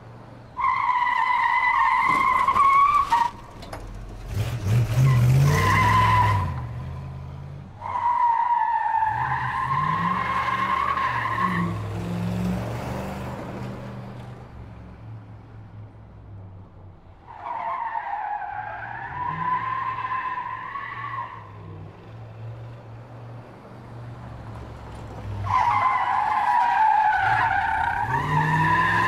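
Dubbed race-car sound effects: four long tyre squeals of about three seconds each, one after another, over a low steady engine rumble, with a short burst of crackling noise around five seconds in.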